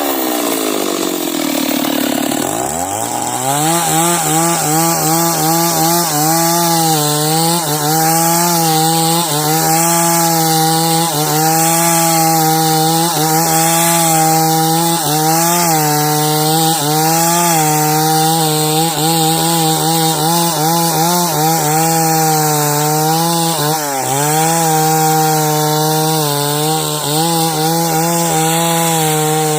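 Two-stroke chainsaw ripping a log lengthwise into beams, its engine holding a steady high pitch under load. In the first three seconds or so the revs sag and climb back, and they dip again briefly near the end.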